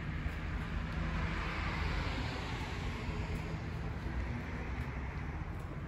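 A road vehicle passing by: a rushing noise that swells to a peak about two seconds in and then fades, over a steady low rumble.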